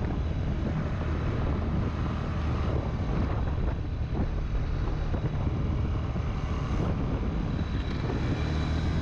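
A moving open vehicle's engine running steadily, with wind rushing over the microphone as it drives along.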